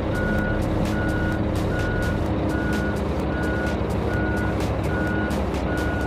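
Large crawler excavator's travel alarm beeping steadily, a single-tone beep about every 0.8 seconds, over the continuous deep drone of its diesel engine as it edges onto a lowboy trailer.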